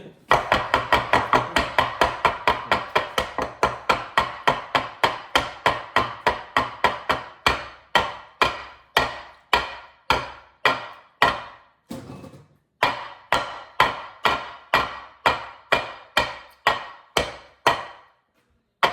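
A kitchen utensil knocking rapidly and evenly against a mixing bowl while beating brownie batter, about three to four strikes a second, slowing a little later, with two short pauses.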